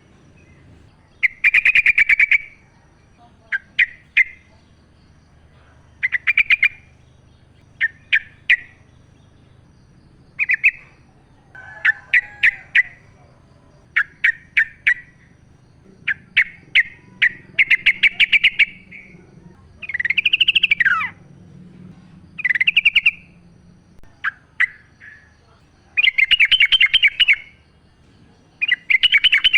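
Yellow-vented bulbul (trucukan) singing in short, rapid chattering phrases, repeated every second or two with brief pauses between them; one phrase about two-thirds of the way through swoops down in pitch.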